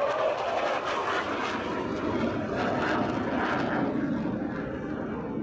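Hawker Hunter's Rolls-Royce Avon turbojet roaring in a display pass overhead, a steady rushing jet roar that eases off slowly as the aircraft moves away.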